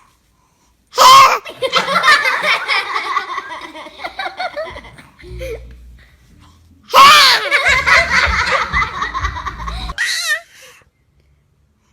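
A baby sneezes suddenly and loudly about a second in, followed by several seconds of laughter. A second sneeze about seven seconds in is again followed by laughter.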